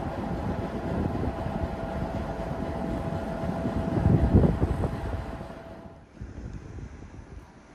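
ČD Class 754 'Brejlovec' diesel locomotive idling at a standstill: a loud, steady rumble with a held tone and wind buffeting the microphone. The sound drops away sharply about six seconds in.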